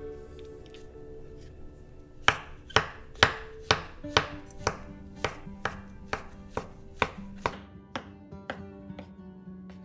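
Chef's knife slicing and chopping button mushrooms on a bamboo cutting board, the blade striking the board about twice a second from about two seconds in. The first strikes are the loudest. Background music plays throughout.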